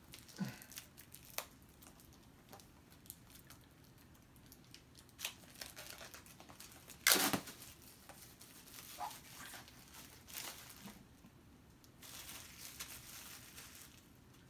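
Plastic shrink wrap being torn and crinkled off a Blu-ray case: scattered crackles and rips, the loudest about seven seconds in, and a longer rustle near the end.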